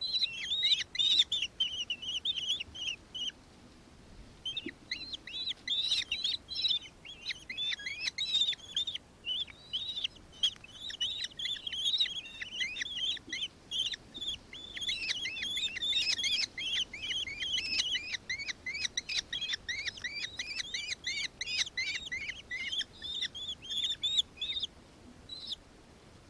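Nankeen kestrel calling in long runs of rapid, high chattering notes, with a short break about three seconds in. The calling stops shortly before the end, followed by one last note.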